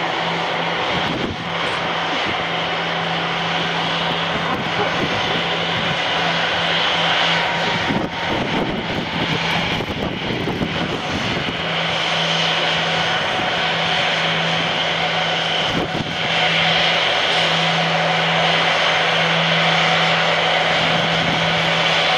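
Four CFM56 turbofan engines of an Airbus A340-300 running at taxi power: a steady jet whine over a low hum, growing a little louder about three-quarters of the way through as the jet comes closer.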